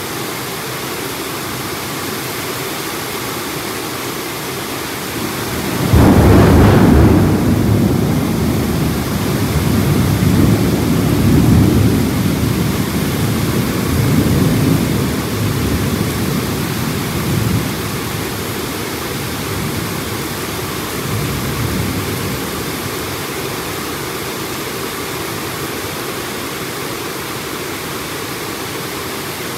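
Heavy rain pouring steadily. About six seconds in, a thunderclap breaks suddenly and rolls on in low rumbles that swell and ebb, fading out over about fifteen seconds.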